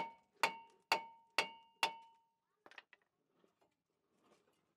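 Hammer blows ringing on a rusted-on cast-iron brake rotor, knocking it loose from the hub: five sharp metallic strikes about twice a second, each with a ringing tone, stopping about two seconds in, then a couple of faint clicks.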